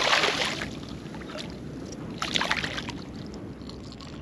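A hooked redfish thrashing and splashing at the water's surface: a loud splash at the start and a shorter flurry about two seconds in, over the soft lapping of shallow water.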